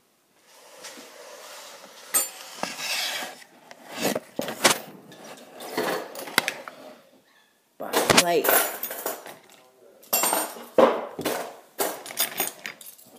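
Phone handling noise: irregular knocks, clicks and rubbing as the phone is moved about and propped up, in bouts with a short pause past the middle.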